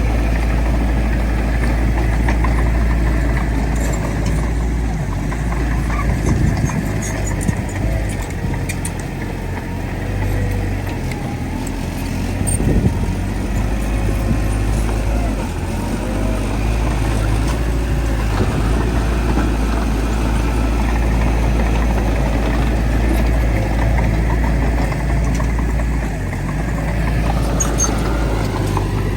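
Heavy diesel earthmoving machinery, a bulldozer working with dump trucks, running steadily with a deep engine sound and a few short knocks and clanks.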